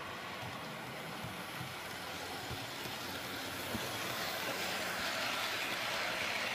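HO-scale model train, a diesel locomotive pulling freight wagons, running on the track: a steady whirring rattle of motor and wheels that grows louder about four seconds in as the train passes close by.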